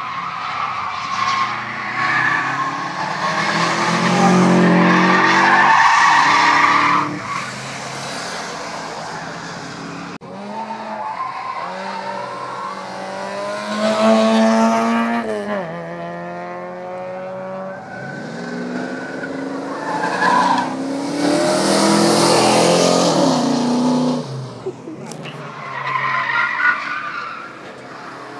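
Cars drifting through a track corner, one after another: engines revving up and falling back, with long tyre squeals as the rear tyres slide.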